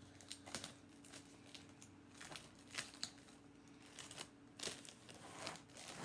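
Clear plastic sheeting crinkling in short, irregular crackles as hands press and smooth it around a resin-covered bowl, over a faint steady hum.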